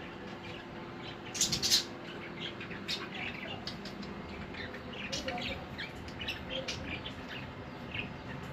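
Budgies chirping and chattering, a steady stream of many short calls, with a louder brief burst about a second and a half in.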